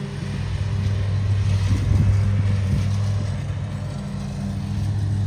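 Lawnmower engine running steadily at raised throttle, with the repaired deck belt back on. It eases off slightly about four seconds in.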